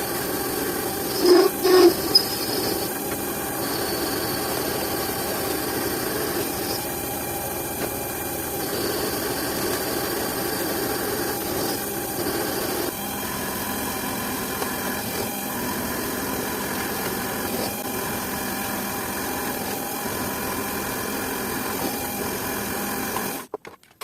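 A power tool running steadily, with a few loud, sharp squeals about one to two seconds in. It cuts off abruptly just before the end.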